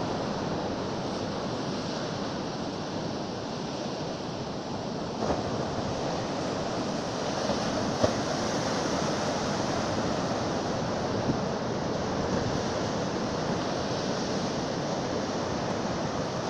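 Rough, storm-swollen sea: heavy waves breaking and washing up the shore in a continuous rush of surf, with a brief sharp tap about eight seconds in.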